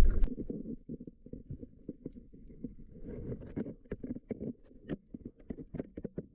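Underwater sound picked up through a camera housing: a low, muffled rumble of moving water with irregular sharp clicks and crackles.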